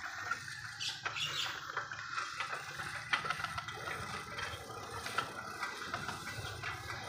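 Bicycle being ridden along a road: steady tyre and road noise with many small scattered clicks and ticks.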